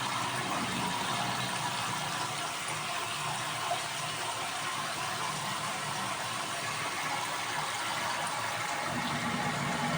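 Water running steadily into the tub of a mini manual washing machine as it is filled.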